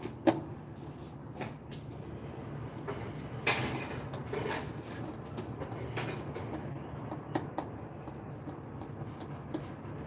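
Scattered clicks and knocks of hands and a tool working on the terminal blocks of an elevator control cabinet while the U, V, W motor wires are being swapped, over a steady low hum. The sharpest knock comes just after the start, and a cluster of knocks follows a few seconds in.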